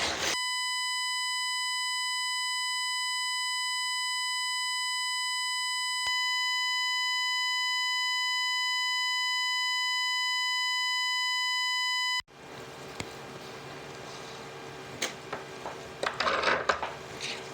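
A steady electronic bleep tone dubbed over the soundtrack, so that nothing else is heard under it. It lasts about twelve seconds, with a single click about halfway, then cuts off into faint kitchen room sounds and handling noises.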